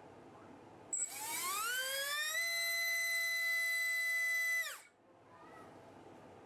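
RCX RS1407-3400KV brushless racing motor spinning a 3-inch three-blade propeller on a thrust stand. A click about a second in, then a whine that rises in pitch over about a second and a half, holds steady at full throttle (about 39,600 RPM) for about two seconds, then drops away quickly as the throttle is cut.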